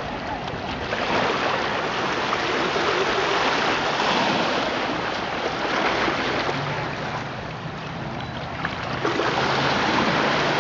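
Small waves washing over the sand in the shallows, surging and easing back several times.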